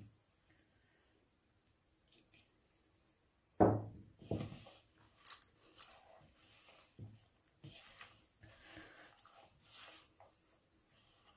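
Hands kneading a stiff flour-and-water dough in a plastic bowl. After a quiet start there is one loud knock a little over three and a half seconds in, then irregular squelching and soft knocking of the dough against the bowl.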